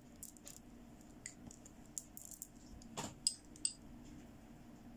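Plastic bead necklace being handled and laid down: beads lightly clicking and clinking against each other, with a soft knock about three seconds in and two sharper clicks just after it.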